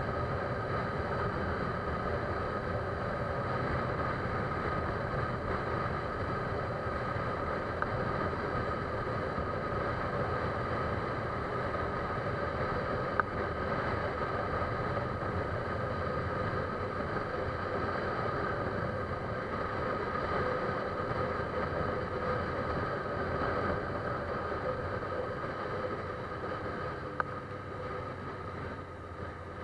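Steady drone of a running engine or vehicle, with a few faint clicks; it grows somewhat quieter near the end.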